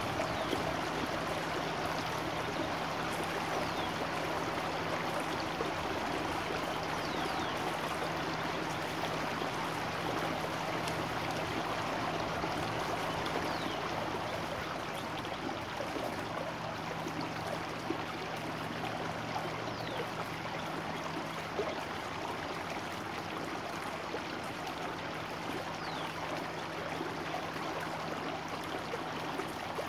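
Small rain-swollen stream rushing and burbling over a riffle, a steady water rush. A few faint, short, high chirps of songbirds now and then above it.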